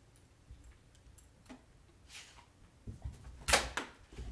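A few scattered light knocks and clicks, with one sharper, louder hit about three and a half seconds in.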